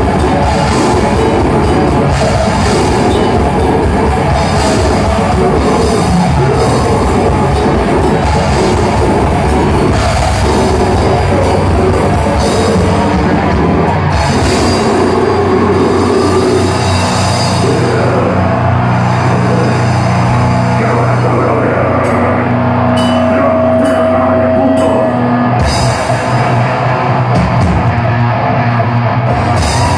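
Death metal band playing live: distorted electric guitars, bass guitar and drum kit, loud and dense. Around the middle the fast drumming gives way to long held notes with cymbal crashes.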